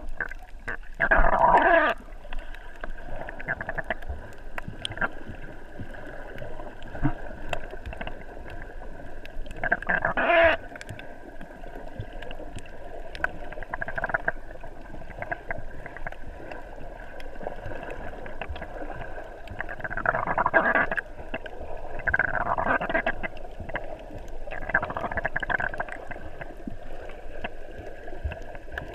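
Muffled underwater sound of water moving past a submerged camera, with five louder rushing bursts: one about a second in, one about ten seconds in, and three close together in the last third.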